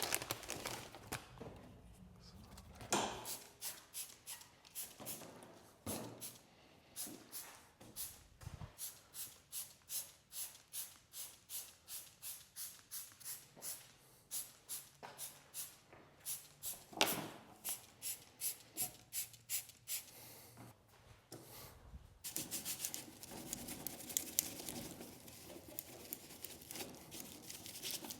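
Hand cleaning of a lawn mower: a run of short, even strokes at about two a second, then, about 22 seconds in, a faster continuous scrubbing rub.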